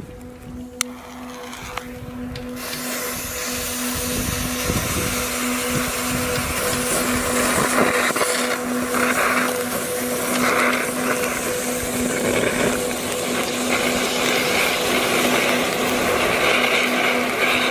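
Ring of anaar flower-pot fireworks burning, a steady rushing hiss of spraying sparks that builds over the first few seconds as more fountains catch, then holds loud. A sharp click sounds about a second in.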